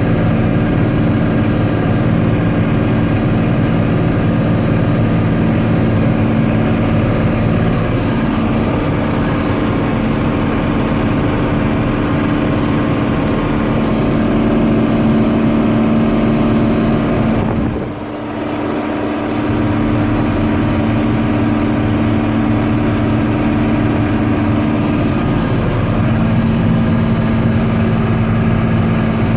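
Combine harvester running steadily while harvesting wheat, a constant engine and machinery hum with a brief dip in loudness about eighteen seconds in.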